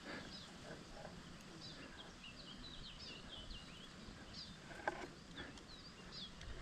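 Faint birdsong: small birds chirping in quick, high, sliding notes, over a low outdoor hiss, with one short sharp click about five seconds in.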